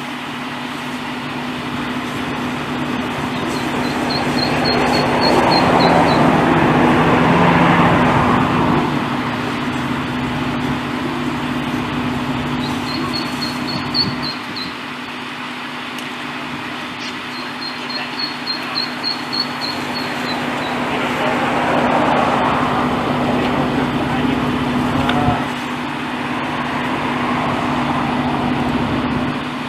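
Steady hum of an idling fire truck engine, with rushing noise swelling up twice. Three short runs of high, rapid peeping come over it.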